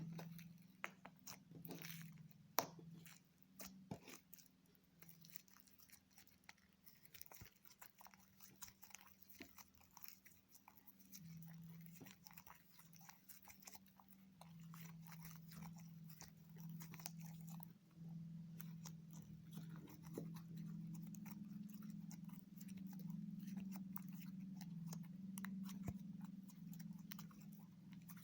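Slime being squeezed and worked by hand, making many small crackling clicks and pops, over a faint steady low hum.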